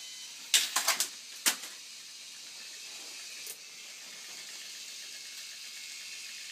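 Plastic parts of a homemade toy-construction machine clacking and rattling as it runs: a quick cluster of sharp clacks about half a second in, then one more sharp clack about a second later, over a steady hiss.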